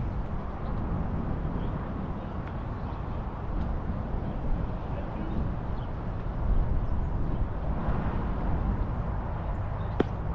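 Wind buffeting the microphone, a steady fluttering rumble, over outdoor ballfield ambience with faint distant voices. A single sharp crack near the end.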